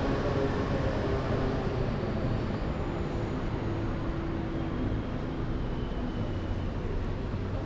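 Steady city street traffic: cars passing on a multi-lane boulevard, a mix of engine hum and tyre noise.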